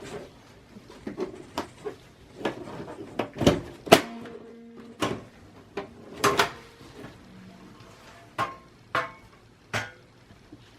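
Clicks and knocks of the side cover panel of a Dell Optiplex 780 small-form-factor computer case being unlatched, slid off and handled, about a dozen irregular strikes. A few leave a short metallic ring, the loudest knock about four seconds in.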